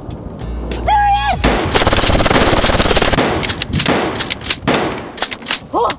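Gunfire sound effect: a loud burst of rapid machine-gun fire lasting about two seconds, then a few scattered single shots.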